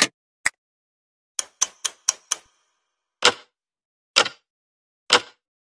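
A series of sharp, dry clicks: two, then a quick run of five at about four a second, then three louder ones evenly spaced about a second apart.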